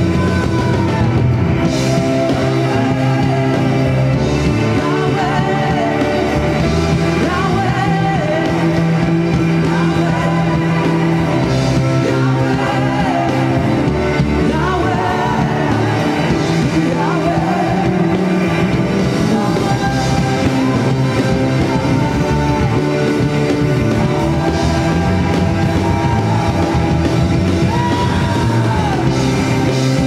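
Live rock-style worship music from a band on drum kit, bass guitar and keyboard, with a singer's voice gliding over it.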